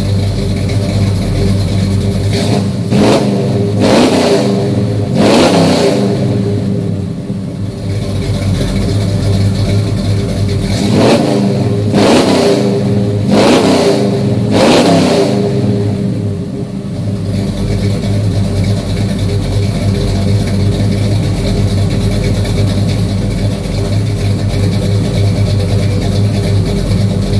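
Small-block Chevy V8 with an XR276HR hydraulic roller cam, heard through dual Flowmaster 40 series mufflers at the tailpipe: idling, then revved in quick blips that rise and fall, a cluster a few seconds in and another near the middle, before settling back to a steady idle.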